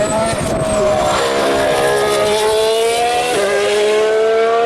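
A 2014 Formula 1 car's turbocharged V6 engine accelerating, its pitch climbing steadily, with one upshift about three seconds in, after which it climbs again.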